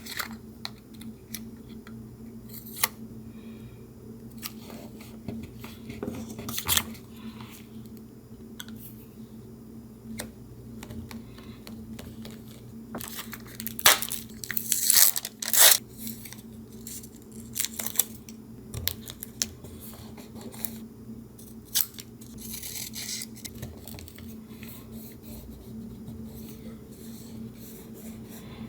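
Paper being handled, torn and cut for a collage: scattered short, crisp crackles and rips, loudest in a cluster about halfway through, over a steady low hum.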